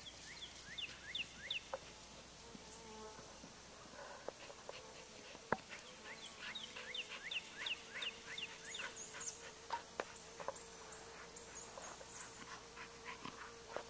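Faint outdoor field ambience: a steady insect buzz, with runs of quick, short whistled bird notes, several a second, near the start and again midway.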